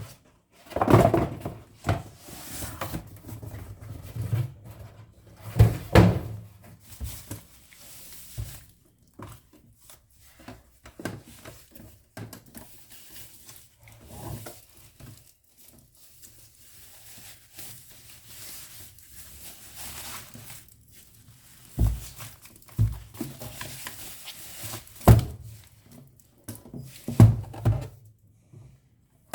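Unboxing handling noise: irregular thuds and knocks with rustling in between as a boxed cutting machine and its packaging are moved and opened. The loudest knocks come about a second in, around six seconds, and several times near the end.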